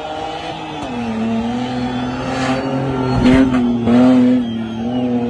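Off-road 4x4 SUV engine running hard at high revs on a dirt course, its pitch dipping about a second in and then holding steady, with a couple of louder bursts near the middle.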